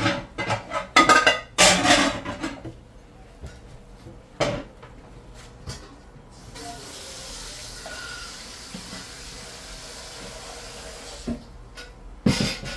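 Dishes and a metal bowl clattering in a stainless kitchen sink, several knocks in quick succession. After that a tap runs in an even hiss for about five seconds and stops, and one more clatter comes near the end.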